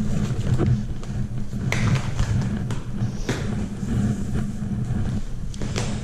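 Heavy rubber-jacketed power cable being pulled off a pile and dragged across a concrete floor: a continuous low scraping rumble with a few knocks as the cable slaps down.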